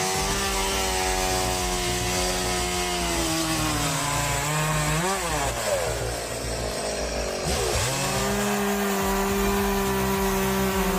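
Two-stroke chainsaw running at high revs, its pitch sagging as it works through wood. About five seconds in the engine revs up and drops quickly, runs lower for a couple of seconds, then climbs back to a steady high pitch near eight seconds.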